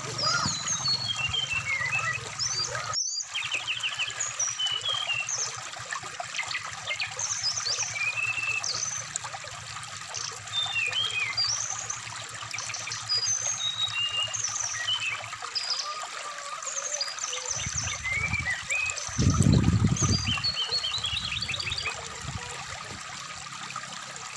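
Brown-chested jungle flycatcher song, a string of short, varied chirps and whistles, over the steady rush of a shallow stream. The sound cuts out for a moment about three seconds in, and a deep rumble rises for a couple of seconds past the two-thirds mark.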